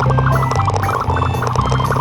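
Upbeat children's song backing music with quick, bright notes over a steady bass line.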